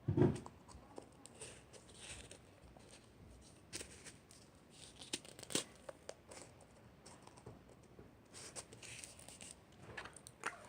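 Faint handling noises: soft rustling of packaging with scattered small clicks, and a short thump at the start.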